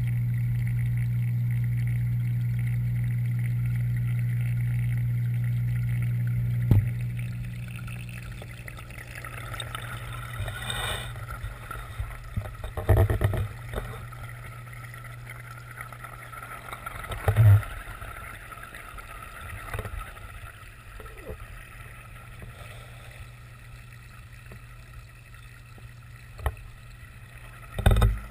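Underwater sound in a fish pond: a steady low hum that stops after a knock about seven seconds in, then faint water noise broken by a few dull bumps.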